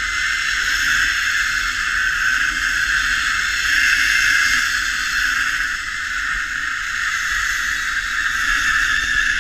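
Zipline trolley's pulleys running along the steel cable: a steady, unbroken whirring hiss.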